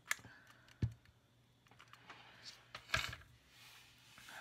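A few sharp taps and clicks of a hot glue gun and wooden popsicle sticks being handled and set down on a tabletop, three clear ones with the loudest about three seconds in.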